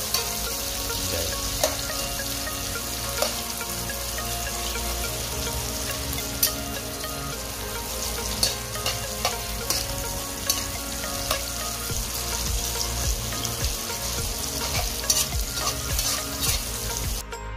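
Sliced hotdogs sizzling as they fry in hot oil in a pan, with a spatula scraping and clicking against the pan as they are stirred. Near the end the sizzling cuts off and music comes in.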